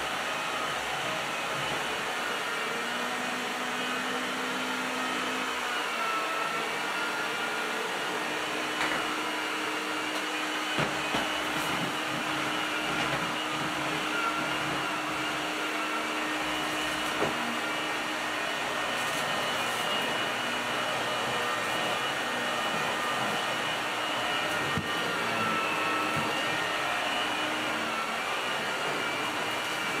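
A vintage Electrolux Ultralux canister vacuum cleaner running steadily, its motorised power head being pushed back and forth over a hardwood floor, with a few faint clicks along the way.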